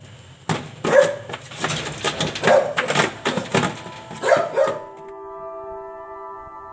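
A Belgian Malinois dam in labour vocalizing in a series of short, noisy cries for the first few seconds. About five seconds in, soft ambient music with long held notes takes over.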